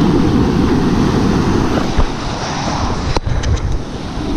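Wind buffeting the microphone over breaking ocean surf, with one sharp click about three seconds in and a few faint ticks after it.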